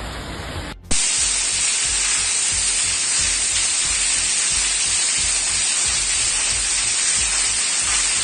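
Rain on a flooded street, cut off about a second in by a louder, steady hiss of rushing water.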